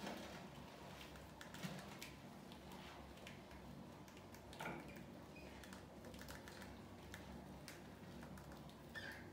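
Faint, irregular light clicks and taps of rats scurrying and scrabbling on a tiled floor, with a few slightly louder knocks and a brief high chirp near the end.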